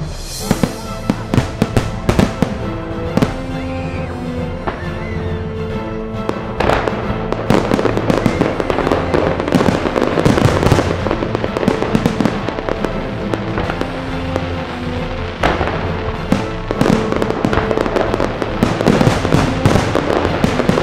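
Aerial fireworks bursting and crackling in quick succession over a music soundtrack, growing into a dense, continuous volley about a third of the way in.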